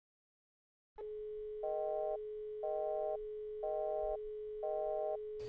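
Telephone line tone in a mobile phone's earpiece: a steady tone with a higher beep layered on top about once a second, four times. It starts about a second in and cuts off suddenly near the end.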